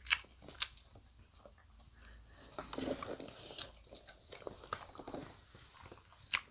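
Close-up biting and chewing of soft Korean fish cake (eomuk), a run of short wet clicks and smacks, with a hissy stretch of chewing noise about midway.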